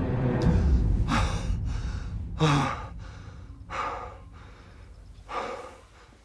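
Heavy, shaken breathing of someone just woken from a nightmare: four loud gasping breaths, each about a second and a half apart and fading, over a low music rumble that dies away in the first two seconds.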